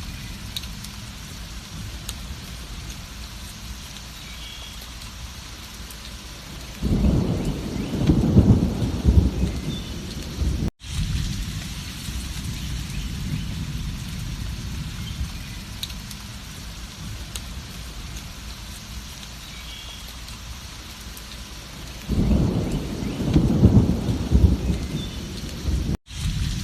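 Steady rain falling, with two low rumbles of thunder about fifteen seconds apart, each lasting around three seconds and breaking off in a brief gap in the sound.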